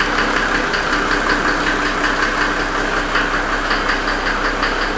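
Mercedes 300SD's OM603 six-cylinder turbodiesel running with a steady, fast knock under the usual diesel clatter. The owner points to this knock as the noise he has been chasing; the uploader tags it as a rod bender, suggesting a bent connecting rod.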